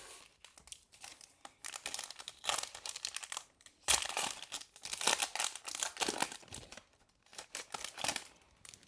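A trading-card pack's wrapper being torn open and crinkled: a run of dense crackling from about a second and a half in to about six and a half seconds, with a few more crinkles near the end.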